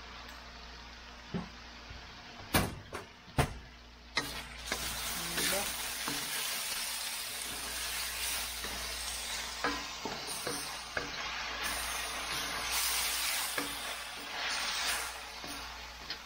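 Vegetables stir-frying in a metal wok, tossed with a wooden spatula. A few sharp knocks of the spatula against the pan come first. From about four seconds in, a steady sizzle runs under frequent scraping and tapping as the vegetables are turned.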